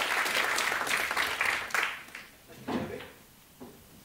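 Audience applauding, the clapping dying away about two seconds in. A short low sound follows near the end.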